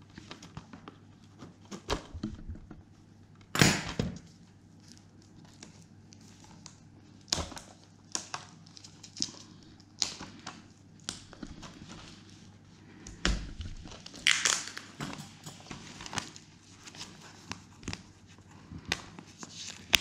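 Blu-ray cases and their plastic shrink-wrap being handled: intermittent crinkling and rustling with scattered clicks and knocks, the loudest about 4 seconds in and again about 14 seconds in.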